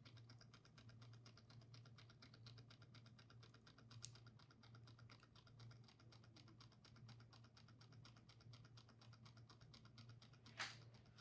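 Near silence: a faint, rapid, even ticking, about ten ticks a second, over a low steady hum, with a single click near the end.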